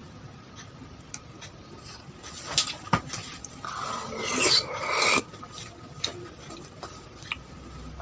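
Eating sounds from a bowl of es pisang ijo: scattered light clicks, two sharp clicks a little past halfway, then a rasping scrape lasting about a second and a half that grows louder and stops abruptly.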